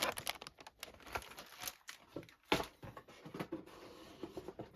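Cardboard kit boxes and packaging being handled: scattered light rustles and taps, with one sharper knock about two and a half seconds in.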